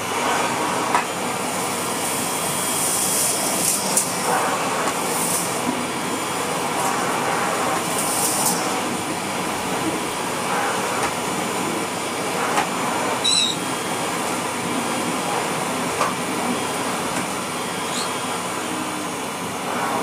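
1988 Hoover Compact Electronic S3462 cylinder vacuum cleaner running steadily as its floor nozzle is pushed over a rug, sucking up sawdust with scattered ticks of debris. The machine has an air leak somewhere.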